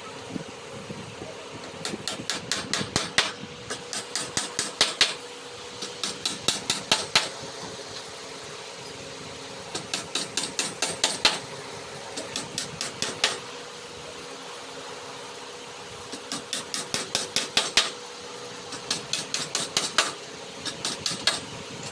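Hammering in quick runs of sharp blows, about five or six a second, each run lasting a second or so with short pauses between. A steady hum runs underneath.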